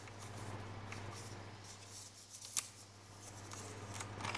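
Faint handling noises of a hand tool and gloved hands working at a ZF 6HP28 transmission's mechatronic valve body: light scraping with a few small clicks, one sharper click about two and a half seconds in, over a steady low hum.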